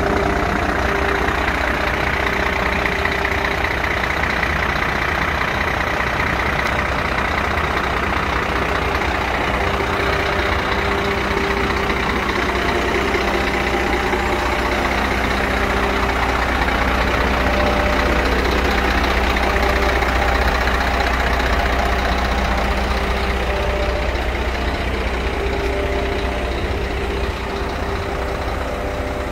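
Scania P114 380's 11-litre straight-six diesel idling steadily, with a constant low rumble.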